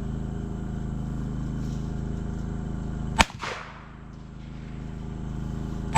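A single handgun shot about halfway through, a sharp crack with a short echoing tail, over a steady low hum that drops away after it; a second shot goes off right at the end.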